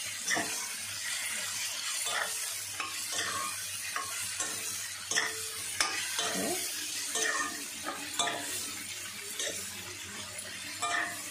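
Marinated mutton sizzling in hot oil in a metal kadai, with a steady hiss. A metal spatula scrapes and knocks against the pan about every half second to second as the meat is stirred.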